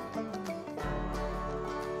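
Background music: a tune of quick plucked-string notes.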